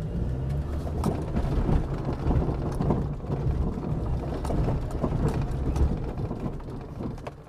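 2014 Leopaard Xiao Feiteng SUV driven over rough ground, its chassis knocking and rattling irregularly over a steady rumble of engine and tyres: chassis noise the owner calls severe, loudest on the left side. It quiets near the end as the car comes to rest.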